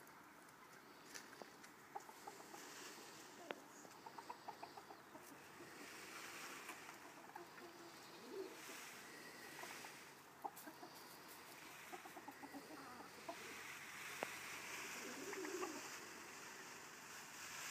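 Chickens clucking softly: faint, scattered short calls, with a quick run of clucks about four seconds in.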